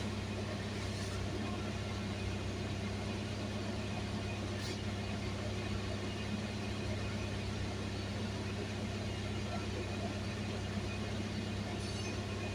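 Car running with a steady low hum over an even haze of road noise, with one faint click about halfway through.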